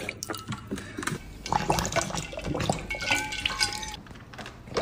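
Weimaraner lapping water from a bowl: quick, irregular wet laps and splashes.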